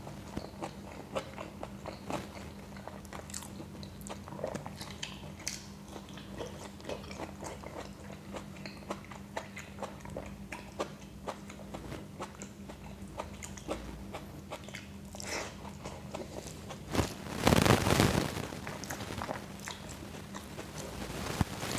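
Close-miked eating sounds: a person chewing rice pulao with yogurt and salad, with many small wet mouth clicks and smacks. About three-quarters of the way through there is a louder noisy burst lasting about a second and a half. A steady low hum runs underneath.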